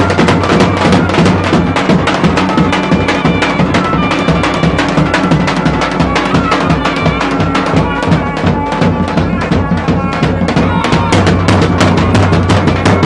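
Two zurna shawms (zurle) play a folk melody over a steady beat on a large double-headed bass drum (lodra/davul) struck with a stick.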